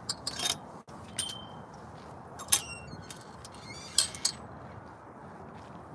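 Metal latch and hardware of a chain-link fence gate clanking several times, each clank ringing briefly with a high metallic tone; the loudest comes about two and a half seconds in.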